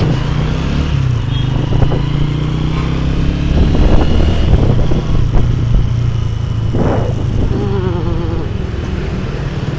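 Honda motorcycle's engine running steadily while riding in traffic, with road and wind noise.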